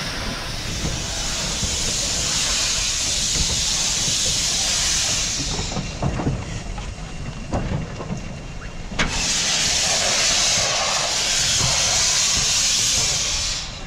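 Steam locomotive blowing off steam in two long hisses of about five seconds each, separated by a quieter gap with scattered knocks; a sharp click comes as the second hiss starts.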